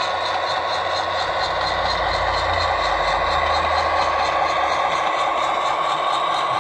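Diesel engine sound from the Tsunami2 sound decoder in an HO-scale Athearn MP15AC switcher, played through the model's speaker as the locomotive runs along the track. A deeper rumble underneath fades out about five seconds in.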